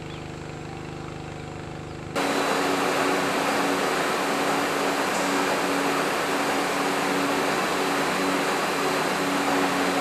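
Milking-parlour machinery running with a steady hum, then about two seconds in a much louder steady rushing noise with a hum through it cuts in suddenly.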